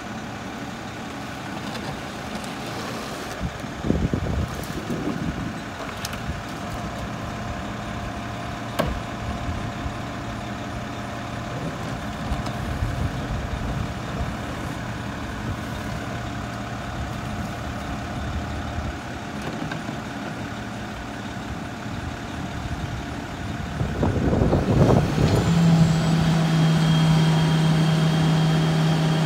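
Front-loader garbage truck's diesel engine idling steadily, with a few sharp knocks as yard waste is thrown into its front carry can. About 25 seconds in the engine revs up and holds a louder, steady higher pitch as the hydraulic arms lift the can up over the cab.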